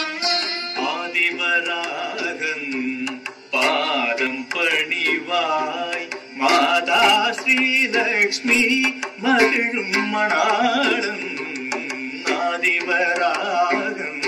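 Background Indian devotional music: a wavering melody over a steady held drone, with frequent drum strokes.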